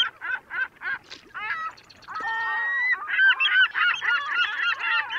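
A flock of birds giving loud honking calls: single calls about three a second at first, then many overlapping calls from about two seconds in.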